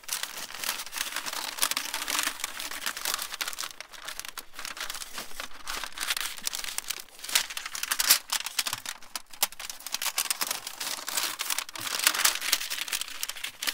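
Thin stainless steel sheet of a roll-up stovepipe crinkling and scraping as gloved hands press and work it along its length, with many sharp metallic clicks and snaps.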